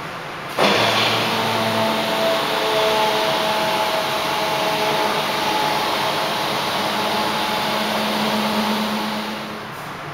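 A steady machine noise, a loud hiss with a few faint humming tones. It starts abruptly about half a second in and dies away near the end.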